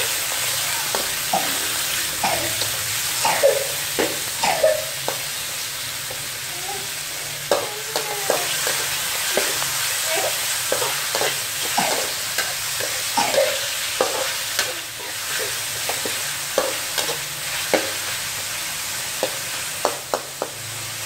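Metal ladle scraping and clinking against a thin steel wok at irregular intervals as chicken organs and garlic are stir-fried, over a steady sizzle of hot oil.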